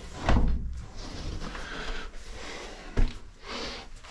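Knocks and handling noise from work on a door and its deadbolt hardware: a heavy thump about a third of a second in and a sharp knock about three seconds in.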